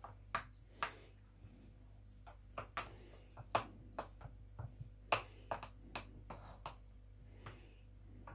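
A metal spoon tapping and scraping against a small plastic container as soft butter is pressed into it: irregular light clicks, a couple a second, over a low steady hum.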